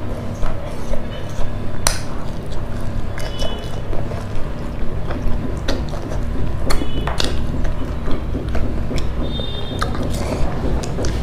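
Close-miked eating sounds: chewing and mouth noises as rice and fried food are eaten by hand, with a few sharp clicks.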